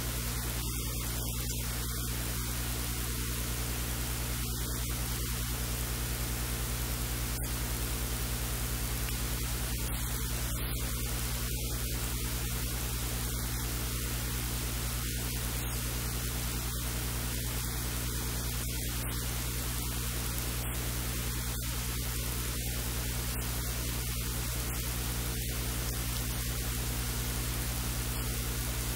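Steady static hiss with a low electrical mains hum underneath, unchanging throughout; no distinct kitchen sounds stand out.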